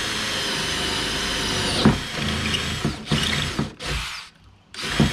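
Cordless drill boring with a 5/16-inch bit through the top skin of a kayak launcher's crossbar. It runs steadily for about two seconds. After a sharp click it runs in short stop-start bursts as the bit punches through the top layer.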